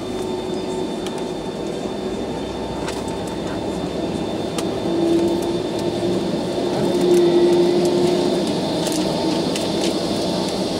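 Cabin noise inside a taxiing Boeing 757-200: the engines running at taxi power, a steady hum with a low whine that swells briefly about five seconds in and again about seven seconds in.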